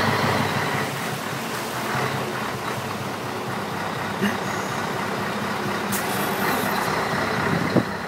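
A vehicle engine running steadily, with a brief hiss about six seconds in.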